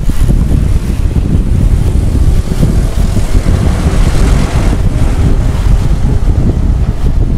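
Heavy wind buffeting on the microphone of an onboard camera on a moving road bike, a loud, steady low rumble.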